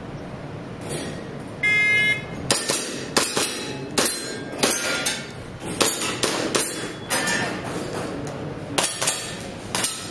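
A shot timer beeps once to start the stage. A rifle then fires a string of about a dozen shots at an irregular pace, some in quick pairs.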